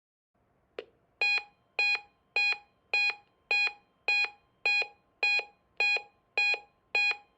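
Weather radio receiver's alert alarm set off by the National Weather Service warning alarm tone test. A click about a second in, then loud beeps repeating a little under twice a second, eleven in all, with the steady alarm tone faintly underneath.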